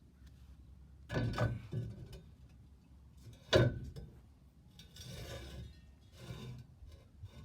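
An old metal bench vise being handled on a workbench: a few clunks about a second in, one loud metal bang a little past halfway, then the vise scraping as it is shifted into place.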